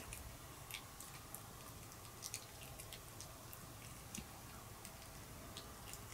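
Pomeranian gnawing a hard sweet potato and duck meat chew stick: faint, irregular clicks and crunches of teeth on the treat.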